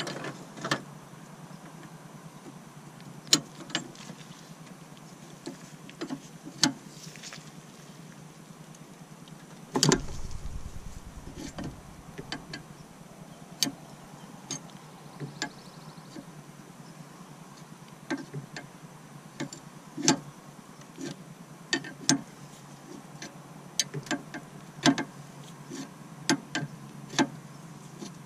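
Irregular sharp clicks and knocks of hand tools and parts being handled during repair work, with one heavier thump about ten seconds in.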